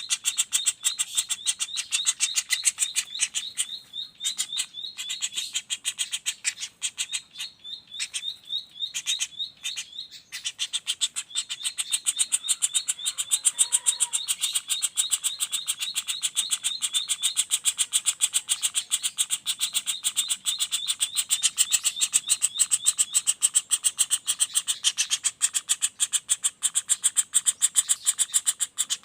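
Young flameback woodpecker (pelatuk bawang) giving its rolling call: a fast, nearly unbroken rattle of sharp, high notes. It breaks off briefly a few times in the first ten seconds.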